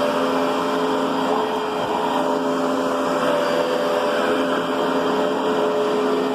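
Riccar Brilliance upright vacuum cleaner running steadily: a constant motor tone over a rush of air.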